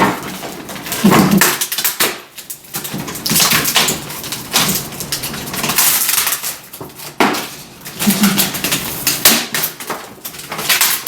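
A MacBook laptop being broken apart by hand: irregular rattling, cracking and clattering of its plastic, metal and glass parts in several loud stretches with short pauses between.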